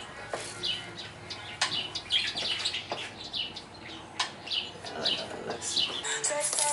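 Small birds chirping, a string of short falling chirps repeating every half second or so, with a few sharp clicks in between.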